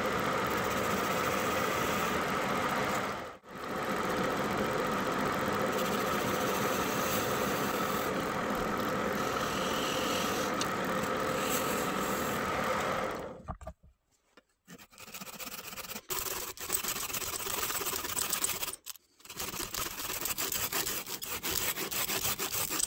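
Wood lathe motor running steadily with a constant hum, stopping suddenly about 13 seconds in. Then a handsaw cuts into the wood in uneven back-and-forth strokes with short pauses.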